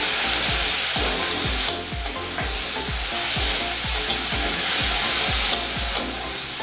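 Onion paste sizzling in hot oil in a kadai as a spatula stirs and scrapes it around the pan, with a few sharp ticks of the spatula against the metal. A background music track with a steady beat plays under the frying.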